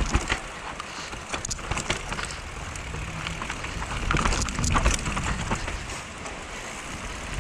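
Mountain bike descending a rooty dirt trail: tyres rolling over dirt and roots, with many quick clattering knocks from the bike over the bumps and a constant low rumble.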